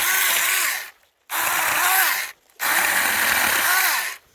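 Saker mini battery-powered chainsaw run in three short bursts of about a second each, its motor pitch rising and falling in each burst as it cuts through small, inch-thick pine branches.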